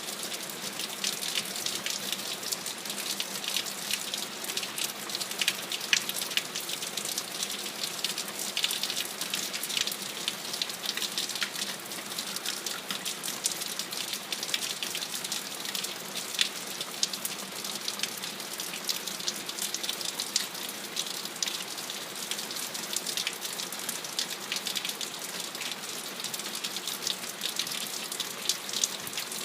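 Steady rain falling, with many individual drops striking close by as sharp clicks over an even hiss. No thunder is heard.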